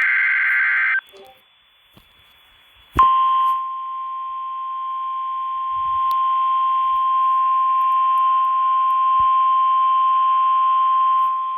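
The tail of an Emergency Alert System SAME header burst, a harsh digital screech, for the first second. After about two seconds of near quiet, a single steady 1050 Hz NOAA Weather Radio warning alarm tone comes in over faint radio hiss about three seconds in. It is the signal that a warning broadcast follows.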